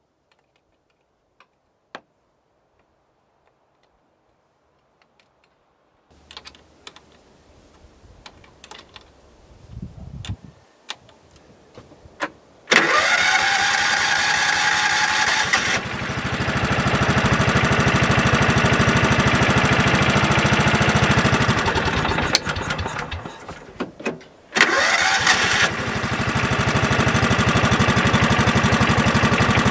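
The small gasoline engine of a riding-mower-style buggy is started. It catches with a rising pitch about halfway through and runs steadily. It then winds down and stops, and starts again a couple of seconds later and keeps running. Before the first start there are a few clicks of handling on the machine.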